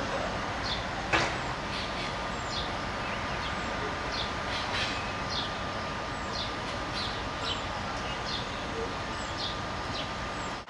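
A bird repeating short, high, falling chirps every half second or so over a steady outdoor background noise with a faint steady hum. One sharp click sounds about a second in.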